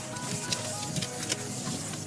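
Background music playing a gentle stepped melody, with a few light clicks from kitchen work under it.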